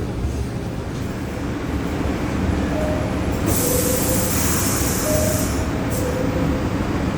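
R62A subway train running on the rails with a steady low rumble, a few short faint tones, and a burst of high hiss lasting about two seconds near the middle.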